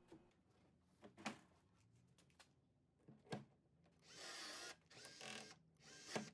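Cordless electric rivet gun setting pop rivets: two sharp clicks about one and three seconds in, then the tool's motor whirs in three short bursts with a steady whine from about four seconds in.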